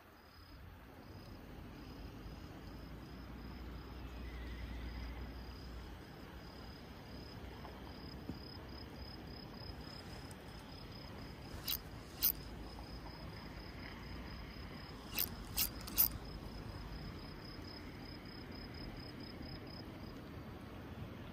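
An insect chirping in a steady run of short, high pulses, with a low rumble underneath. Five sharp clicks stand out a little past the middle, two and then three close together.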